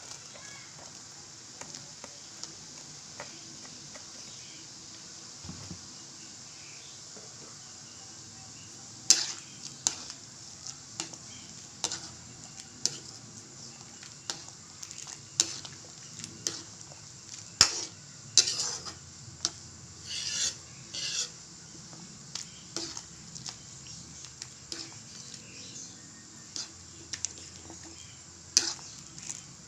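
A cooking utensil stirring and scraping against a pan, over a steady sizzling hiss from the food cooking in it. The clicks and scrapes start about nine seconds in and come irregularly, often in quick clusters.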